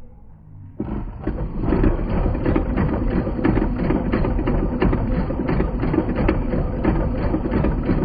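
Electric sewing machine running steadily, its needle stitching in a fast, even rhythm, starting about a second in after a brief lull.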